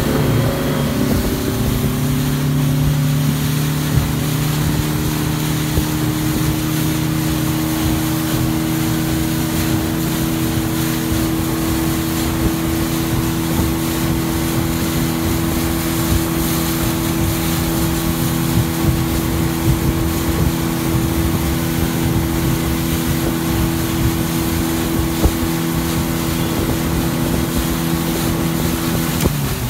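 Speedboat engine running at a steady high speed, with a constant rush of water and wind along the hull. About a second in its note settles, and near the end the pitch drops as the throttle eases off.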